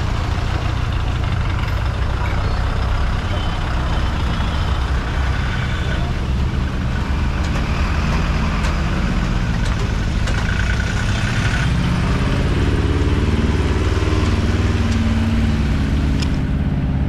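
Road traffic crossing the tracks: truck engines running and tyres hissing on the wet road, with one truck's engine growing louder close by in the second half.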